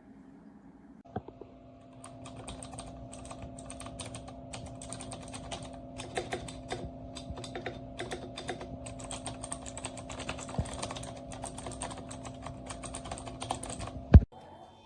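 Fast typing on a MageGee 75% mechanical keyboard with red linear switches: a dense run of key clicks starts about two seconds in and ends with a single loud thump near the end.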